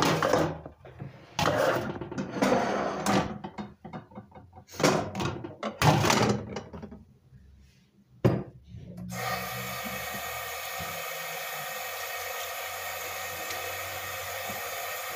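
Hand dishwashing: soapy water splashing and plastic and enamel dishes being handled in a run of loud, irregular bursts. About eight seconds in there is a click, and a steady hiss starts suddenly and carries on.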